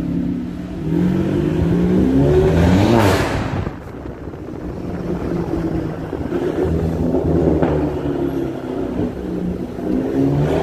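Volkswagen Polo GTI's turbocharged 2.0-litre four-cylinder engine and exhaust under acceleration in an underground car park. The revs climb for about two seconds, then drop sharply near the four-second mark as the throttle lifts or a gear changes. The engine runs at lower revs after that and begins climbing again near the end.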